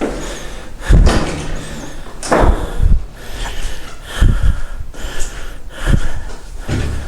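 Irregular heavy thumps and knocks, about six in seven seconds, like footsteps and bumps on boards as a person moves through a derelict building, with breathing close to the microphone.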